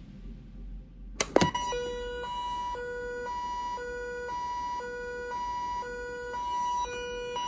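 Electronic emergency alert tone: after a couple of clicks about a second in, a steady beep near 1 kHz sounds with a second two-pitch tone switching on and off about once a second over it, like a pulsing alarm siren.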